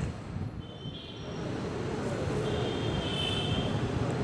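Steady low rumble of distant vehicles, with a sharp click right at the start and a faint high thin tone a couple of seconds in.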